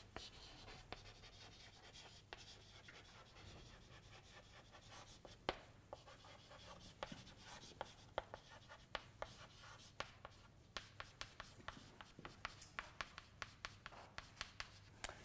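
Chalk writing on a blackboard: faint scratching with many short sharp taps as the letters are formed, the taps coming thicker in the second half.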